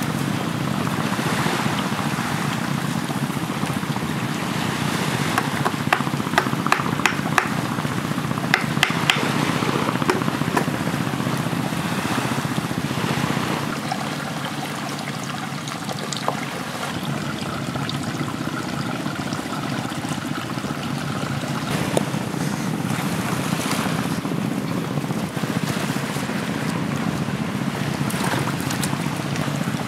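Sea waves breaking and washing up a sandy beach, with wind on the microphone. Partway through comes a quick run of sharp cracks.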